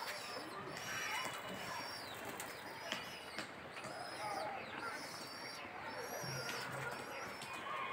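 Birds calling: a short high chirp repeated over and over, a little more than once a second, with softer, lower calls mixed in.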